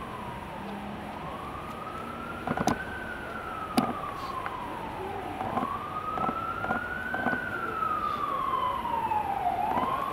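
Emergency vehicle siren wailing, its pitch rising and falling in slow sweeps of about four to five seconds each. Two sharp knocks come a few seconds in.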